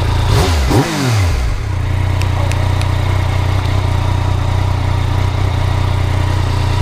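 2019 Yamaha MT-09's inline-three engine given a couple of quick throttle blips within the first second and a half, then idling steadily.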